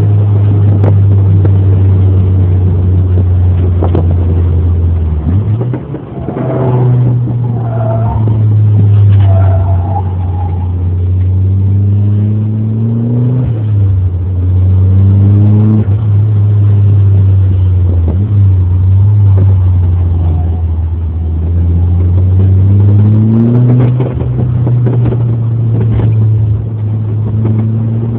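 Turbocharged Mazda BP 1.8-litre four-cylinder in an MX-3, heard from inside the cabin under hard track driving. Its note climbs as the car accelerates and drops back sharply at each gear change, several times over.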